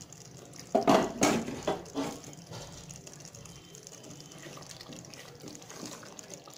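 Wooden spatula stirring thick chicken curry gravy in a pot, with a few loud knocks in the first two seconds, then soft wet stirring sounds.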